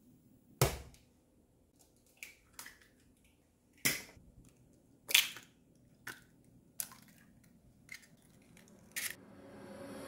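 Raw eggs being cracked one after another and broken open into a small earthenware pot (ttukbaegi): a series of sharp cracks and shell crunches, roughly one a second. Music fades in near the end.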